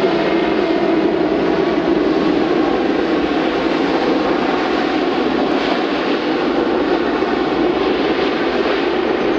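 Boeing 767 airliner's jet engines giving a loud, steady roar as the plane rolls down the runway on its landing run, easing slightly near the end.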